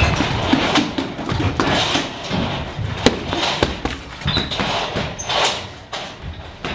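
Boxing gloves smacking into focus mitts during pad work: a run of sharp, irregularly spaced hits with shuffling in between.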